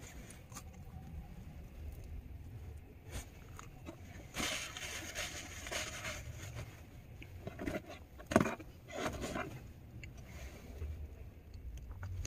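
Paper food wrapper rustling and a plastic fork clicking while someone eats, with a sharp click about eight seconds in as the loudest sound. A steady low rumble from the vehicle underlies it.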